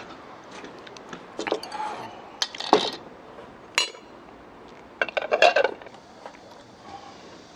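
Ceramic plates and bowls clinking and knocking against each other, chopsticks and the wooden table as they are picked up and stacked. The clatter comes in several short bursts, the busiest about five seconds in.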